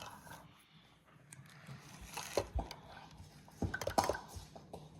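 Faint scattered knocks and clicks of small containers and utensils being handled while slime ingredients are poured into a bowl, with a cluster about halfway through and another near four seconds in.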